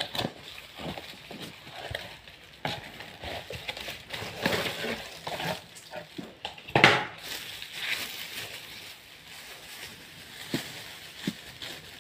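Cardboard box and plastic packaging handled during the unboxing of a keyboard: irregular scraping, tapping and crinkling, with a sharper knock about seven seconds in.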